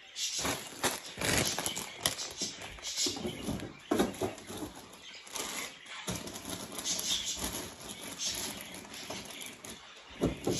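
Food packages and containers being handled and put back into a refrigerator: irregular rustling with scattered light knocks and clatters.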